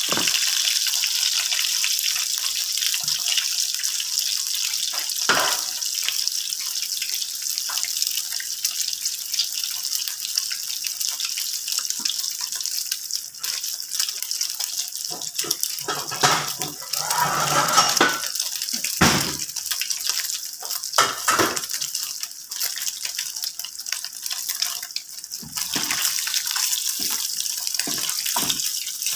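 Slices of Spam frying in hot oil in a pan, with a steady high sizzle. A few short knocks and scrapes break through, as a spatula works the slices and turns one near the end.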